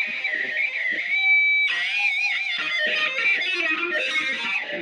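Lead electric guitar solo on a Les Paul-style guitar: quick runs of single notes, one note held for about half a second around a second in, then bent notes with wide vibrato.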